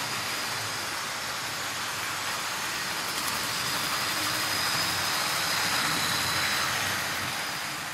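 Tri-ang Hornby 9F model steam locomotives running on the layout track: a steady whir of their electric motors with a thin high whine and the noise of wheels rolling on the rails. It grows a little louder as Evening Star passes close, then fades away near the end.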